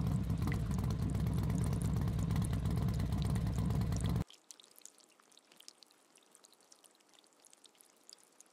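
Heavy rain together with the low running of an auto-rickshaw's engine, both cutting off abruptly about four seconds in. After that only faint rain patter with scattered drips remains.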